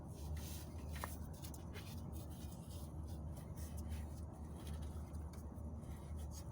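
Faint scratching and clicking of fingers working a rubber O-ring into the groove of an engine oil cooler, over a steady low hum.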